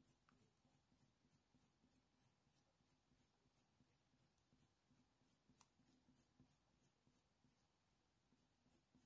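Faint, rhythmic scratching of a Polychromos coloured pencil on hot-press watercolour paper, light shading strokes at about four a second, with one faint tick about halfway through.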